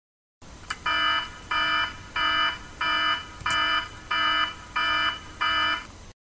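An electronic alarm sounding in eight even, buzzy beeps, about three every two seconds.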